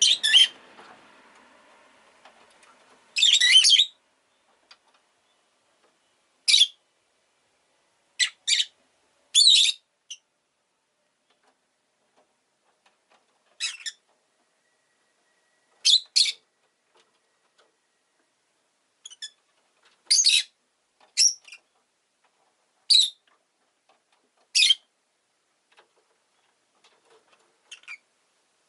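Rosy-faced lovebird calling: about a dozen short, sharp, high-pitched chirps at irregular intervals, with gaps of a few seconds between some of them.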